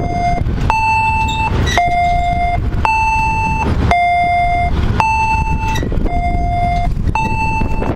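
An electronic two-tone warning alternating between a lower and a higher pitch, about one tone a second, sounding as an MBTA commuter train approaches the platform. Under it runs the low rumble of the train's diesel locomotive.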